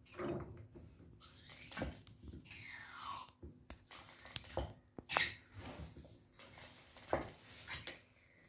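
Plastic syringe pump of a homemade hand-pump model being worked up and down to draw water: irregular clicks and knocks of the plunger and ice-cream-stick handle, with scraping and a falling squeak about three seconds in.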